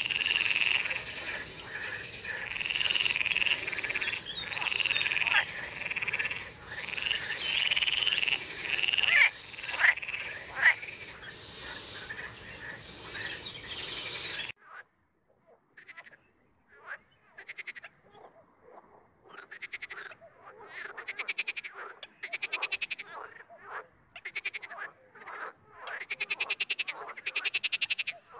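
Water frogs (green frogs of the genus Pelophylax) croaking. For the first half it is a dense chorus of overlapping calls over a steady hiss. About halfway it cuts abruptly to separate croaks, each a rapid rattling train of pulses about a second long, with short gaps between.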